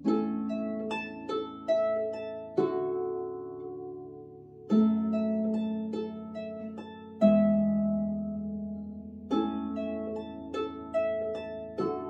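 Lever harp played solo in a slow tune: a low chord plucked about every two and a half seconds, with a few higher melody notes between, each note ringing on and fading.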